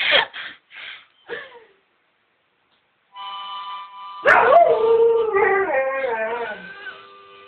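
About three seconds in, a harmonica starts playing a held chord. A second later a dog howls along with it: one long howl, louder than the harmonica, that slides down in pitch in wavering steps, while the harmonica carries on quietly beneath and after it.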